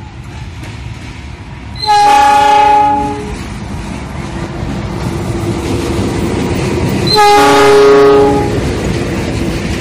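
CC 206 diesel-electric locomotive sounding its multi-tone horn in two blasts of about a second each, about five seconds apart, as it passes hauling passenger coaches. The locomotive's engine and wheels on the rails rumble steadily underneath.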